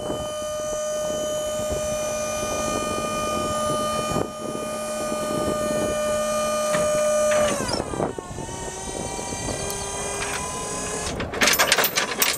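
Waltco hydraulic lift gate's pump motor whining steadily as the platform rises; about seven and a half seconds in its pitch drops sharply and it runs on lower. It stops near the end, followed by a quick run of metal clanks and rattles as the gate folds up.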